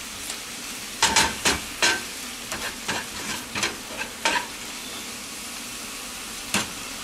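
Spinach frying in an oiled pan, wilted and cooked down, with a steady sizzle. A utensil stirs it, scraping and knocking against the pan about ten times at an irregular pace over the first four and a half seconds, then once more near the end.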